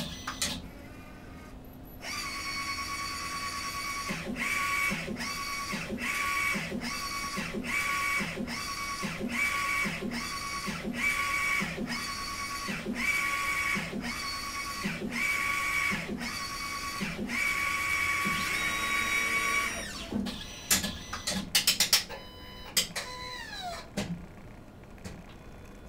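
Garment inkjet printer printing onto a T-shirt: the print-head carriage whines steadily on each pass and breaks off briefly about every three-quarters of a second as it reverses. A few seconds before the end the passes stop, followed by a few clicks and a falling whine.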